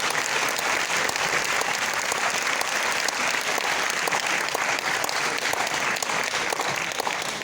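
Audience applauding steadily, dense clapping that fades out just after the end.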